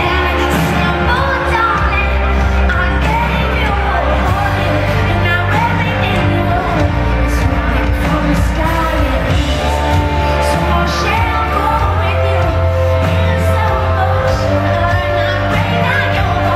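Live pop song: a woman's lead vocal sung through a handheld microphone over a full band with a heavy, sustained bass.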